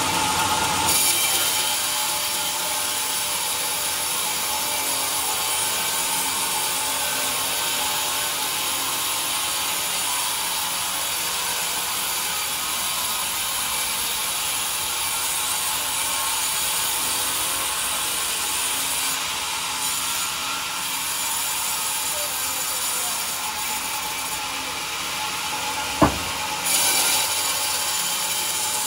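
Band sawmill's blade cutting lengthwise through a log on the carriage: a steady hiss of sawing with the machine running. One sharp knock near the end.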